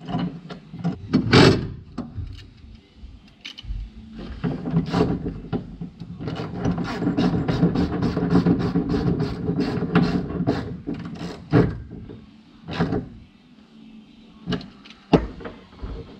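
Metal seat and harness hardware and hand tools clicking and knocking inside a stripped race-car interior. A sharp knock comes about a second and a half in. From about six seconds in comes a run of rapid, even ticks, about four a second, over a steady hum that stops near eleven seconds.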